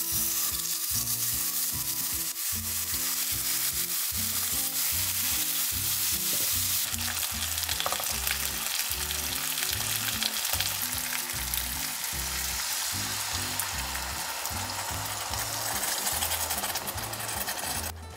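Patagonian toothfish steaks frying in olive oil in a nonstick pan. A loud, steady sizzle starts the moment the fish goes in, with light background music underneath.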